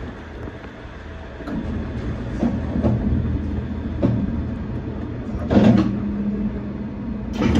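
Shonan Monorail 5600-series suspended monorail car pulling away from a station, heard from the cab: a low running rumble that builds from about a second in, broken by a series of knocks, the loudest a little past halfway and another near the end.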